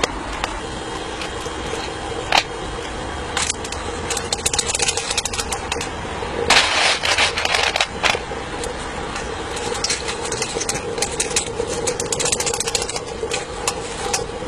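Electric draught fan running steadily to draw the fire of a miniature steam locomotive, with intermittent metallic clicks and clatter, a loud rushing burst about six and a half seconds in, and a run of clatter later on.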